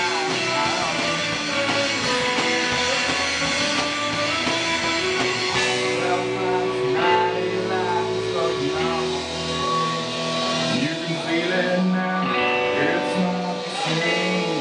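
Live rock band playing: electric guitar over drums.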